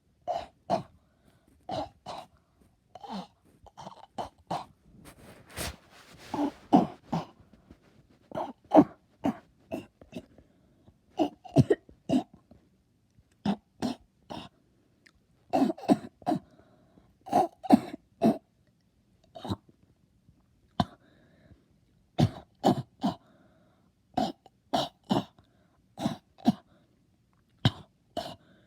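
A person coughing over and over, in short bursts of two or three coughs with brief pauses between.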